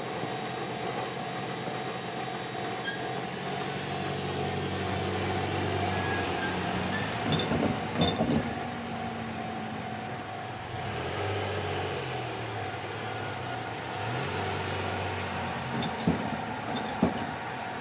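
Road vehicles moving slowly, their engines running with pitch rising and falling, and a few sharp knocks about eight seconds in and again near the end.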